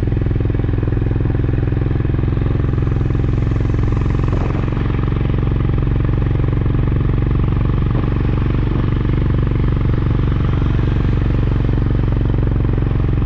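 Honda CB350RS single-cylinder motorcycle engine running steadily while riding at cruising speed, with road and wind noise under it.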